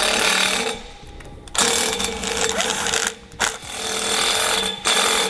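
Power driver running a number 12 self-tapping screw into the trailer's metal frame in about four bursts with brief pauses between them, fastening a brake-line T fitting.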